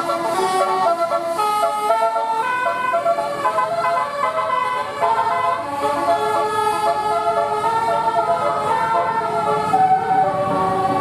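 Bus 'telolet basuri' musical air horn, a multi-trumpet horn, playing a tune of quick stepping notes one after another. A low rumble comes up near the end.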